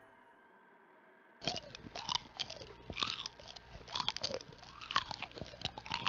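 Cartoon sound effect of a camel chewing and crunching on a brush held in its mouth: a quick, irregular run of crunches with short sliding squeaks, starting about a second and a half in and stopping abruptly.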